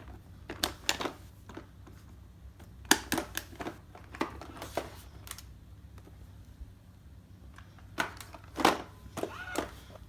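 Irregular clicks and knocks from handling an Eworld M886 robot vacuum and pressing its buttons, over a steady low hum.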